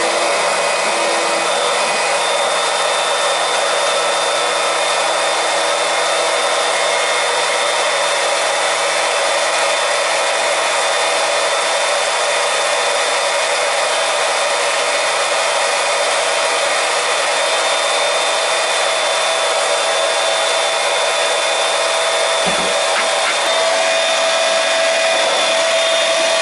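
Small electric transfer pump running steadily, drawing propylene glycol antifreeze from a bucket through hoses to fill a hot-water heating system. There is one brief low bump near the end.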